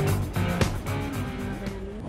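Background music with a regular beat, fading out near the end.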